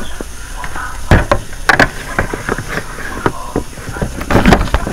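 Plastic incubator body knocking and scraping against its rocking cradle as it is lowered and settled onto the cradle's seats: a series of separate knocks, a cluster of them near the end.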